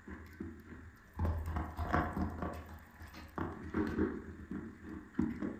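Dry chalk being bitten and chewed: a run of irregular crunches, starting loud about a second in.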